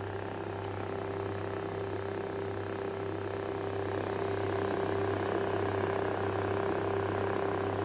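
Warmlite WL44004 2000W flat fan heater running: a steady fan rush over a low electric motor hum and a steady mid-pitched tone.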